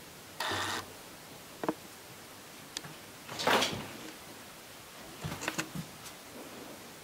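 A bedroom door knocking and rubbing, with scuffs of cats scrambling on a wooden floor. There is a short rubbing sound near the start, a sharp knock, a louder scrape in the middle, and a quick run of small knocks near the end.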